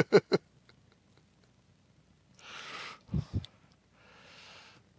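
A person sighing, two breathy exhalations about a second and a half apart, with a brief low voiced sound between them.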